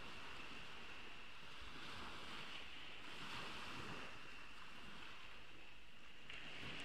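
Small sea waves washing onto a beach, one wash swelling and fading around the middle, over a steady hiss.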